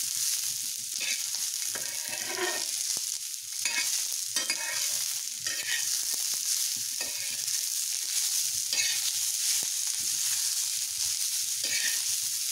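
Corn kernels sizzling in oil on a flat metal griddle (tawa) while a spatula stirs and scrapes them through the spice masala. The strokes come every second or so over a steady hiss.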